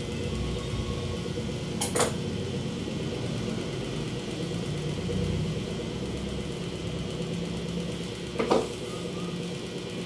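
A steady mechanical hum, with a sharp click about two seconds in and another a little before the end.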